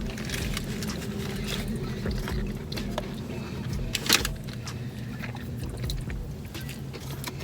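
Steady low hum of a car's cabin, with scattered small clicks and rustles of people eating and handling food packaging. One sharper click comes about four seconds in.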